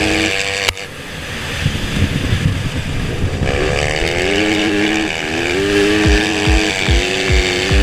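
Background music with a steady kick-drum beat, cutting out abruptly about a second in and returning a few seconds later, over a rough rumbling noise.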